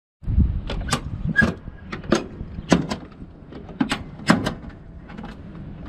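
Latches on an ATR72-600's PW127M engine cowling being unfastened by hand: a string of about ten sharp metallic clicks and clacks, thinning out in the second half, over a steady low rumble.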